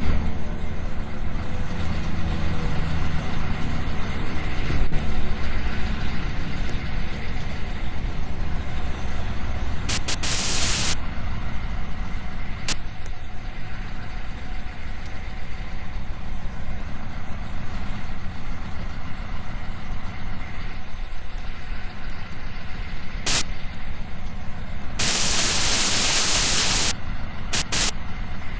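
Fire squad truck engine running steadily while under way, its pitch falling in the first few seconds. Short hissing bursts come around ten seconds in and again near the end, the longest about two seconds.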